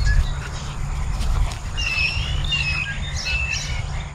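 Several songbirds chirping and whistling short, repeated notes over a steady low rumble.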